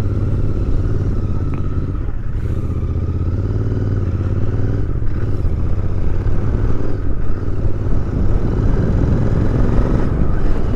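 Royal Enfield Interceptor 650's parallel-twin engine running steadily on the highway, getting a little louder in the second half.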